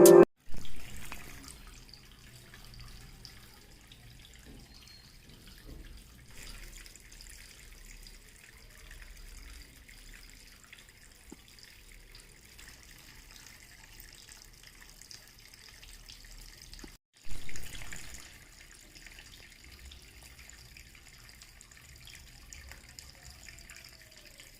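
Water trickling and dripping from a small cement table-top waterfall fountain fed by a mini pump, faint and steady, with two brief louder surges, one just after the start and one about two-thirds of the way through.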